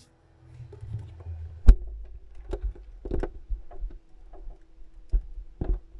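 A handful of sharp knocks and clunks at irregular intervals over a steady low hum.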